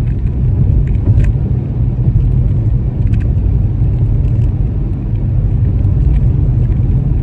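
Car driving along a road, heard from inside: a steady low rumble of road and engine noise, with a few faint clicks.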